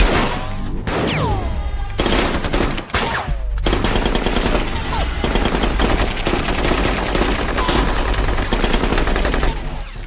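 Film-soundtrack gunfight: automatic rifles firing in rapid, nearly continuous bursts, easing off near the end.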